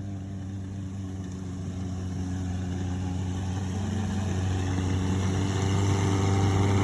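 Mazda pickup truck's engine driving a homemade paddle-wheel boat, running steadily and growing louder. It is held in first gear, the only gear usable because of a gearbox fault.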